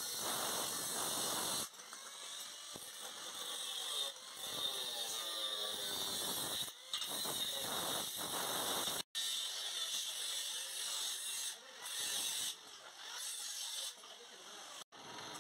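Angle grinder with a cut-off disc running and cutting through stainless steel square tube: a steady high-pitched whine with the rasp of the disc in the metal. The sound breaks off abruptly for an instant about nine seconds in and again near the end.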